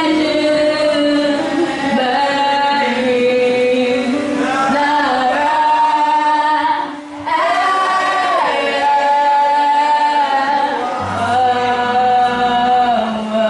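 A woman sings lead gospel praise into a microphone, with backing singers. She holds long notes, breaks off briefly about seven seconds in, and low accompanying notes come in near the end.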